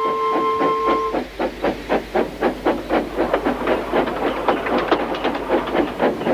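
Steam locomotive running with an even rhythm of exhaust chuffs, about five beats a second. A held two-note tone stops about a second in.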